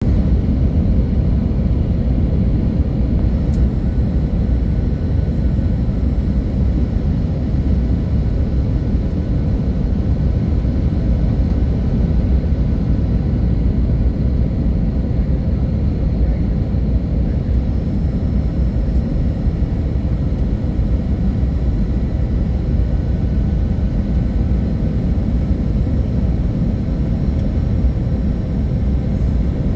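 Airliner cabin noise on approach to landing: a steady low rumble of jet engines and airflow with a faint, steady whine over it.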